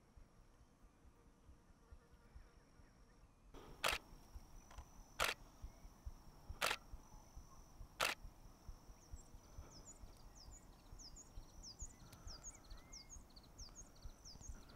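Four single shutter releases of a Nikon DSLR, sharp clicks about a second and a half apart, starting about four seconds in. From about nine seconds in, quick, high, falling chirps run on faintly behind.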